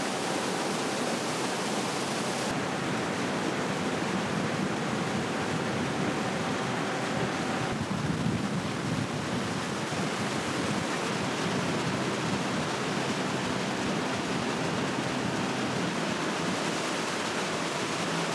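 A steady rushing noise with no distinct events. A faint steady tone under it stops about eight seconds in.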